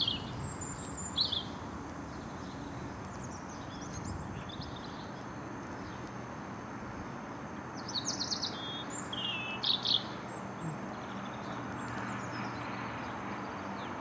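Small birds chirping: a few short high calls near the start and a louder cluster about two-thirds of the way through, over a steady low rushing background noise.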